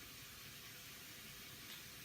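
Shower water spraying: a faint steady hiss, with a faint hum under it and a small click near the end.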